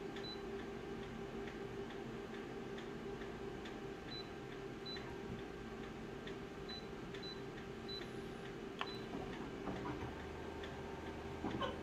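Office photocopier touchscreen giving a short high key beep with each press, several times, over the machine's steady hum. About ten seconds in, Start is pressed and the copier begins scanning: a low motor hum sets in, with a few clicks.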